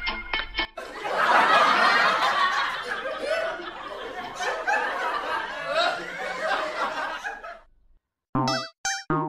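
Laughter lasting about seven seconds, fading out, after a moment of music at the start. Near the end come short, separate comic music notes with a wobbling pitch.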